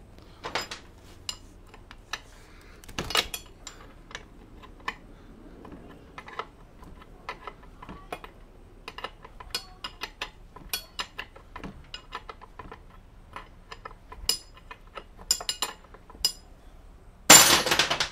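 Light, irregular metallic clinks and ticks of a wrench working loose the top cap on a Honda CL350 fork tube, with a louder noisy burst lasting just under a second near the end.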